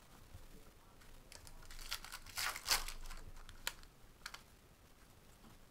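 A stack of trading cards being flipped through by hand, the cards sliding and snapping against each other. A rustling stretch comes about a second and a half in, followed by a couple of sharp clicks.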